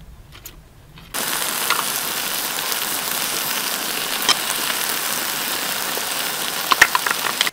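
Food sizzling in a hot metal wok of whole chickens and cabbage: a steady hiss that starts suddenly about a second in, with a few sharp crackles.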